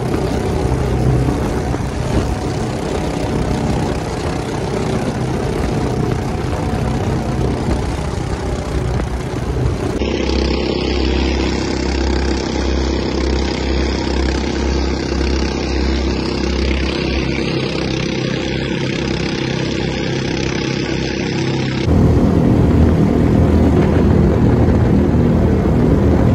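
Engines of a motorized racing boat running at high throttle, a loud steady drone with rushing water and wind. The sound changes abruptly twice, about ten seconds in and again near the end.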